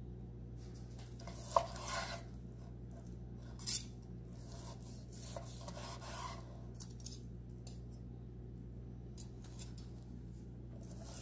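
Chef's knife sawing through a seared ribeye on a wooden cutting board: a few separate rasping strokes through the crust, with a sharp click about one and a half seconds in and light clicks of metal on wood. A steady low hum runs underneath.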